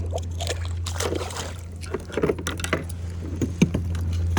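Water splashes and small knocks from a kayak on the water, over a steady low hum.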